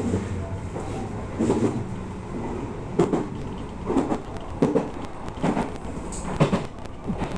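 An Odakyu commuter train running along the line, heard from inside the driver's cab, its wheels knocking over rail joints and points in a series of uneven knocks about once a second over the steady running noise.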